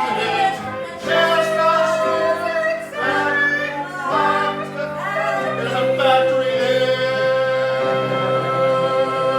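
Cast singing together with instrumental accompaniment in the closing number of an improvised musical, finishing on a long held note over the last few seconds.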